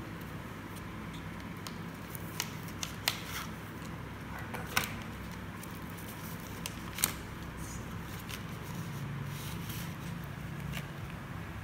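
A handful of light, sharp clicks and taps from hands pressing and handling modelling dough on a hard tiled floor, the loudest about seven seconds in, over a steady low hum.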